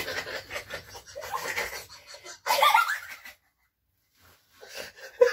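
People laughing and giggling breathily, broken by about a second of silence a little past the middle.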